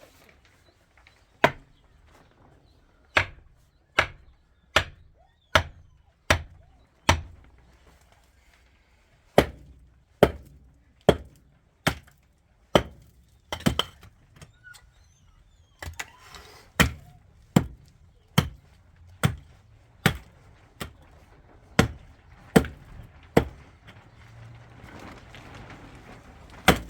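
Hand tool striking hard material again and again, about one sharp blow a second, in runs with short pauses.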